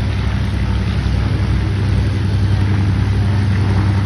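Steady low drone of an aircraft engine at an airshow, a constant hum with no clear change in pitch or level.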